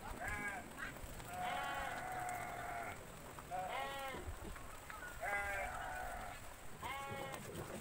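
Bleating livestock, a goat or sheep kind of call, heard five times; the second call is long and drawn out and the others are short.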